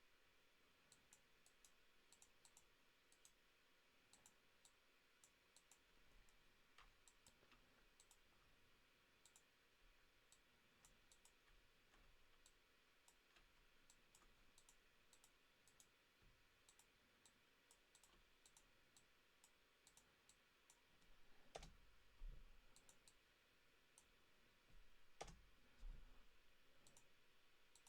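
Faint, frequent clicks of a computer mouse being used at a desk, with two louder thumps, one a little past two-thirds of the way through and one near the end.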